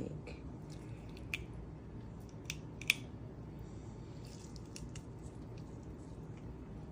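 A hard, plastic-like coating on food being picked and pulled off by hand: faint crinkling with scattered sharp clicks and ticks, the loudest about three seconds in.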